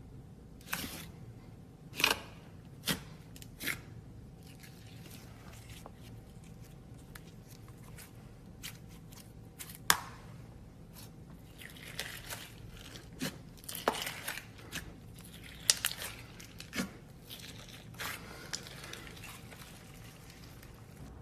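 Slime being worked by hand: scattered sharp pops and stretches of crinkly crackling.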